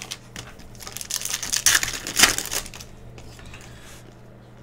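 Foil wrapper of a Panini Prizm basketball card pack crinkling and crackling as it is torn open and the cards slid out, a dense run of crackles from about a second in, loudest around two seconds, then fading.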